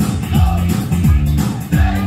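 Dance music with a steady beat, played loud over stage loudspeakers.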